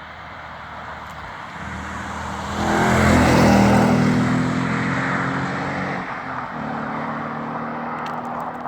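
Ford Mustang 5.0 V8 on its stock exhaust driving past. The engine note builds to its loudest about three seconds in, dips briefly around six seconds, then carries on as a steady drone.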